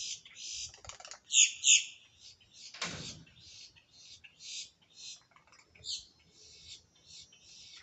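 Boat-tailed grackles calling: a run of short, high chirps, the two loudest about a second and a half in, with a harsher, downward-falling call near three seconds.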